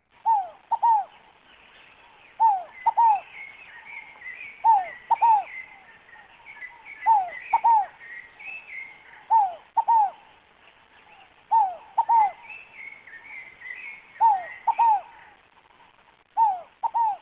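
Scaled dove (rolinha fogo-apagou) calling: a two-note coo of short falling notes, repeated steadily about every two seconds. Other birds chirp more faintly at a higher pitch between the coos.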